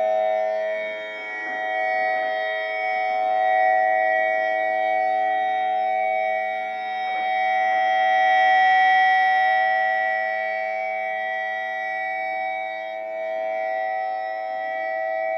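Dual-tone ACA Alertronic AR-1600 electronic siren sounding its steady Alert signal: two close tones held at a fixed pitch, swelling and dipping in loudness every few seconds.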